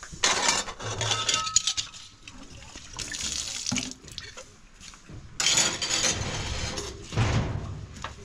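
Water running and splashing, starting and stopping in several stretches of a second or two.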